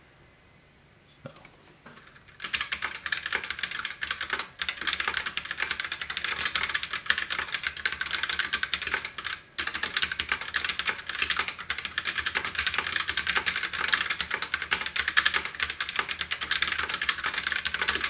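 Fast typing on a Rocat Vulcan mechanical keyboard with red switches: a couple of single key presses, then from about two and a half seconds in a dense, continuous clatter of keystrokes, broken briefly twice.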